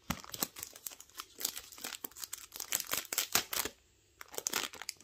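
Clear plastic wrapping around a rolled diamond-painting canvas crinkling as it is handled, a run of quick crackles with a brief pause about four seconds in.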